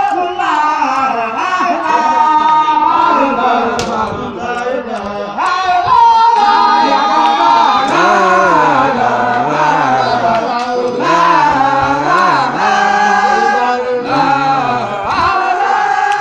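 A group of Baye Fall men chanting a religious chant together in unison, loud, with long held notes that glide up and down.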